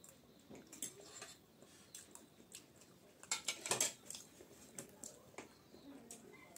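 Spoon and fork clicking and scraping on ceramic plates while eating boiled eggs: scattered light taps, with a louder cluster of clicks a little past halfway as a plastic water bottle is picked up.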